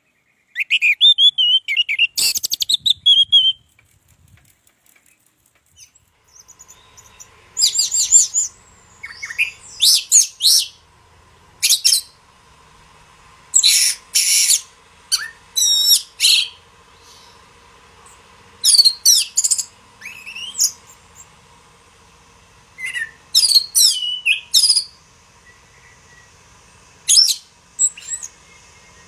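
Orange-headed thrush singing in loud, high-pitched phrases of quick whistled and sweeping notes, broken by pauses of one to a few seconds, with a faint steady hum underneath.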